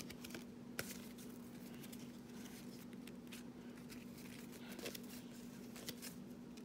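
Trading cards being flipped through by hand: faint soft clicks and slides of card stock, a few sharper snaps among them, over a steady low hum.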